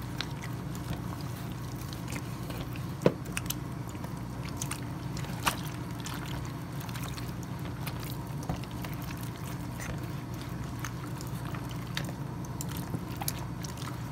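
Gloved hands rubbing and turning raw pork ham in vinegar and flour in a plastic tub: soft wet slapping and small wet clicks, with two sharper knocks about three and five and a half seconds in. A steady low hum runs underneath.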